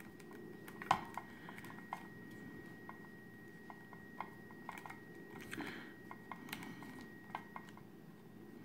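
Small PVC figure parts being handled and pressed into place: scattered faint plastic clicks and taps, a sharper click about a second in, and a brief rub of fingers on plastic a little past halfway.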